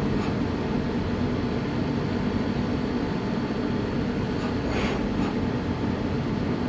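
Ecoca EL 5110 CNC teach lathe running its program: a steady machine hum, with a short hiss about five seconds in.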